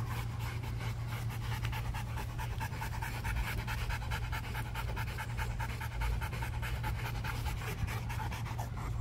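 Rottweiler panting rapidly and evenly, out of breath from exercise, over a steady low hum.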